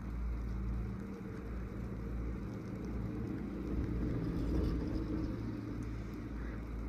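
Steady mechanical rumble and hum of a slow CTEC fixed-grip chairlift in motion, swelling a little about four to five seconds in.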